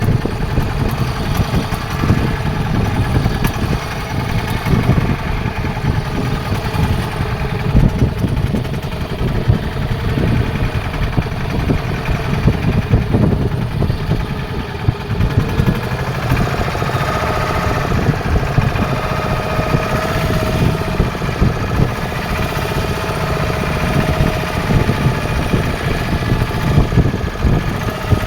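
Fishing boat's engine running steadily with a rapid low chugging. A faint steady whine joins about halfway through.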